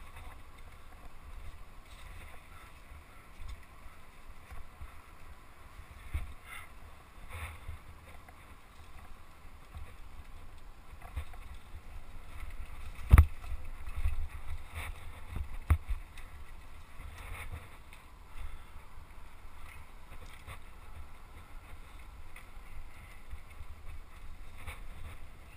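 Mountain bike rattling and knocking as it rides down a rough singletrack, with a steady low wind rumble on the camera's microphone. The loudest knock comes about halfway through, followed by a few more over the next few seconds.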